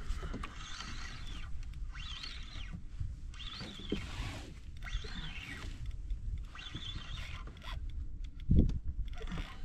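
Fishing reel being wound in short bursts about once a second while a hooked fish is brought in, a whirring gear whine that wavers in pitch with each turn. A low wind rumble runs underneath, with a couple of heavy thumps near the end.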